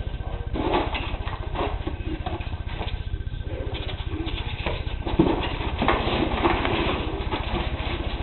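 Paper packing and packing peanuts rustling and crinkling in irregular bursts as a box's contents are handled and pulled out, over a steady low hum.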